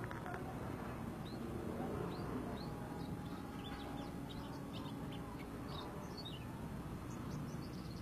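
Caged white-eyes (pleci) chirping: a fast scatter of short, high chirps and quick trills, busiest in the middle of the stretch.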